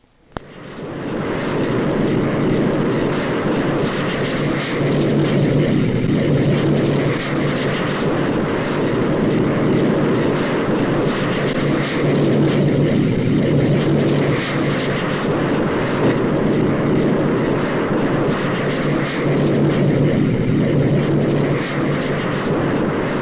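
Aircraft engines running loud and steady, with a low hum and slight swells and dips every few seconds. The sound comes in abruptly right at the start.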